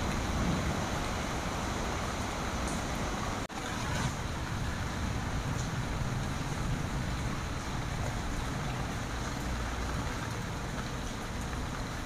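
Steady rain falling on broad tree leaves, an even hiss with a low rumble underneath, cut off for an instant about three and a half seconds in.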